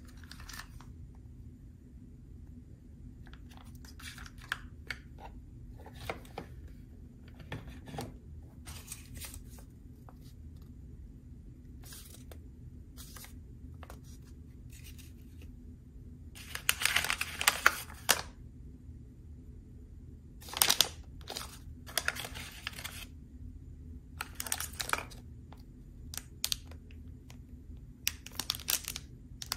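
Plastic wrappers and paper sleeves of packaged toiletries rustling and crinkling as a hand picks them up. The sounds come in short, separate bursts, loudest about halfway through, over a steady low hum.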